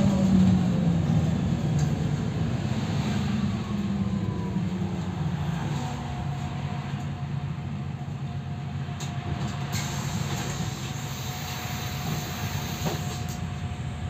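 MAN Lion's City NL283 city bus driving, heard from inside the passenger cabin: the diesel engine's drone and road noise, the engine note falling off at the start, with a steady whine from the drivetrain coming in about six seconds in.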